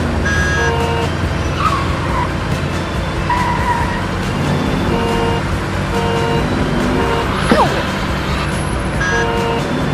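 Cartoon soundtrack: background music of short repeated notes over a steady vehicle engine rumble, with a quick falling glide about seven and a half seconds in.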